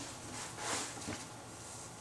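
Writing on paper, a scratchy stroke sound. The clearest burst starts about half a second in and lasts under a second, then fainter scratching follows.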